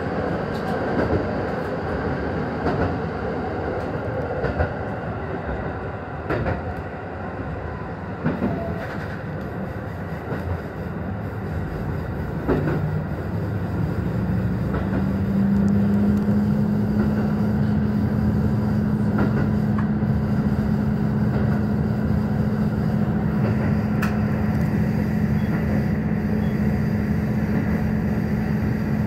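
Ride noise inside the cab of a JR Hokkaido KiHa 150 diesel railcar: the steady rumble of wheels on rail with a few sharp knocks. About halfway the diesel engine's note comes up, rises a little in pitch and then holds steady as the car runs under power, and the whole sound gets louder.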